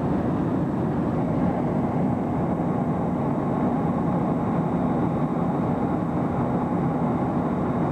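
Steady cabin noise of a turbofan jet airliner in flight, a constant rushing noise with a low hum underneath.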